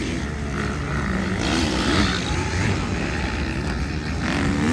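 Motocross motorcycle engines revving, their pitch rising and falling over a steady low rumble.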